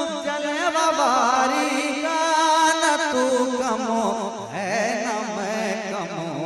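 A male naat singer's wordless, ornamented vocal run, the voice sliding and wavering up and down over steady held notes underneath.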